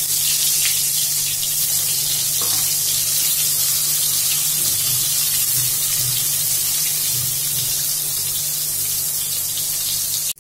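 Brinjal (eggplant) slices sizzling steadily as they fry in hot oil in a kadai.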